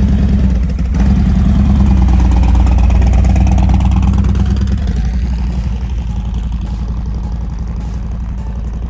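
Harley-Davidson Road Glide ST's V-twin engine running loud. It cuts in suddenly, builds over the first few seconds, then eases off a little.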